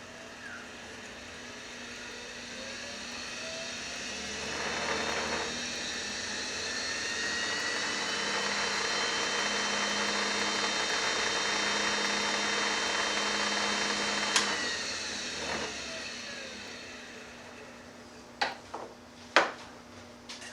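Woodturning lathe motor speeding up over several seconds and running steadily with a whine. It is switched off with a click about 14 seconds in and coasts down, and a few sharp knocks follow near the end.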